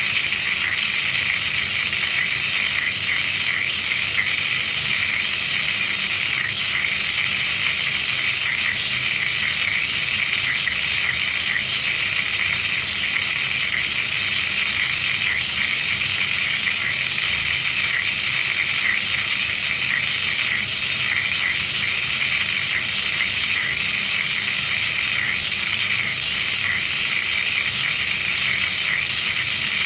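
Spark erosion in a DIY sinker EDM running 40 kHz pulses: a steady, loud, high-pitched crackling buzz of rapid electrical discharges between electrode and workpiece, holding even throughout.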